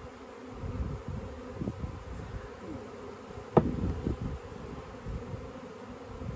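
A swarm of honey bees buzzing steadily around an open hive box as the swarm is being hived. A single sharp knock a little past halfway is the loudest sound.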